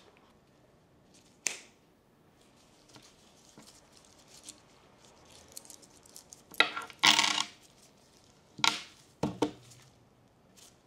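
Coins dropped onto a hard tabletop, clinking and rattling in two short clusters, the first about two-thirds of the way through and the second near the end.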